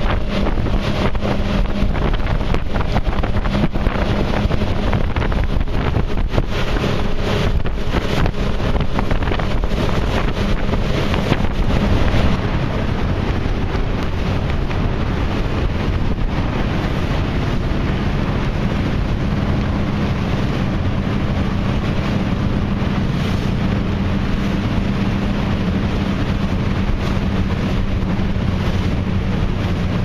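Twin outboard motors running at cruising speed, with water rushing along the hull and heavy wind buffeting the microphone. About twelve seconds in the sound changes abruptly: the buffeting eases and the engine hum is steadier.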